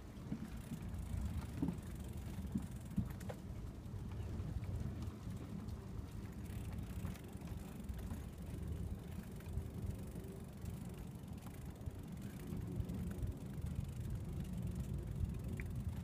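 Bicycle tyres rolling over the planks of a wooden boardwalk: a steady low rumble with a few small knocks from the boards.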